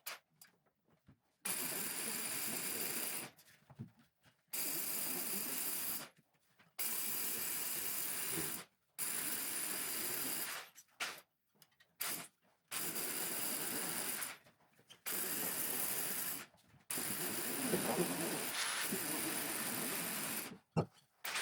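A steady machine hiss, like a motor-driven tool running, in about seven bursts of one to three seconds each that start and stop abruptly with near-silent gaps between.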